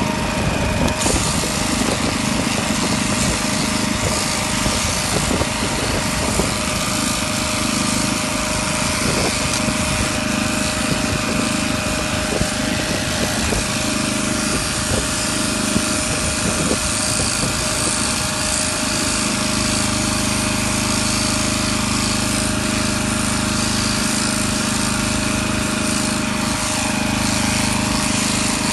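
Electric shearing handpiece running steadily with a fast buzz as its cutters work through llama fleece.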